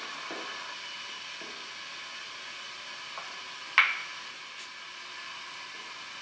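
Short holly stem pieces being set down and shuffled on a wooden disc: a few light wooden clicks and one sharp wood-on-wood knock a little past halfway, over a steady background hiss.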